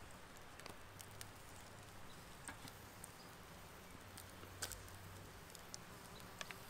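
Faint, scattered crackles and ticks from a small cooking fire under a steel cup of charring bell peppers.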